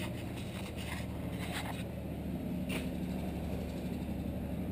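A steady low mechanical hum with a few faint clicks. The hum grows a little louder midway.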